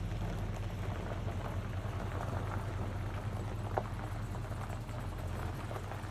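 An engine running steadily with a low hum, with a single light click about four seconds in.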